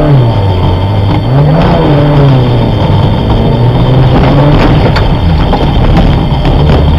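Competition car's engine heard from inside the cabin while driven hard: it revs up and down, rising about a second and a half in, falling back, then running steadily under load.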